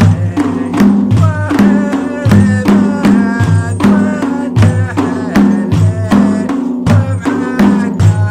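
Samri folk song from the Gulf: voices singing a melodic line over frame drums beating a steady rhythm.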